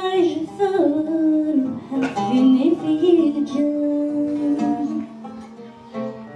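A voice singing a Kabyle song in Berber to acoustic guitar accompaniment, the melody sliding between held notes. The music drops to a quieter level about five seconds in.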